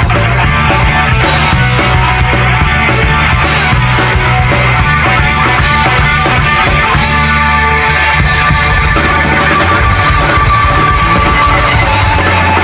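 Loud rock music played by a band with guitar, running steadily without a break.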